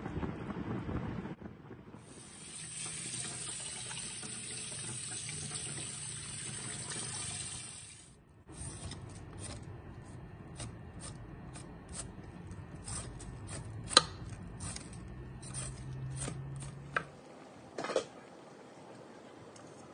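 Tap water running steadily for about six seconds, then a knife scraping the skin off a fresh Chinese yam in a series of short strokes, about two a second. Near the end comes a single metal clink.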